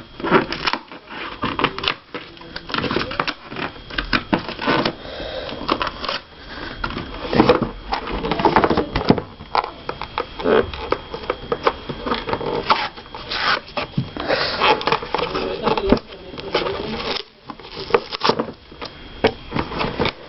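Cardboard shipping box being worked open by hand: a continuous, irregular run of rustling, scraping and clicking handling noises.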